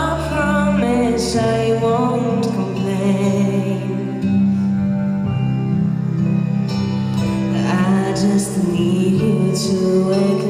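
A woman singing a slow song live through a microphone and PA, with long held notes that bend in pitch, over a steady soft instrumental backing.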